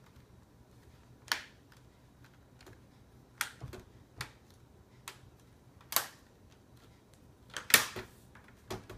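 Plastic laptop screen bezel being pressed back onto the display, its clips snapping into place in a series of sharp, irregular clicks, the loudest near the end.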